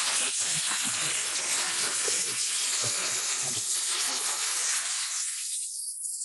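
High-pressure water jet spraying with a steady, loud hiss as a washed engine part is rinsed inside. About five seconds in the spray thins to a faint high hiss.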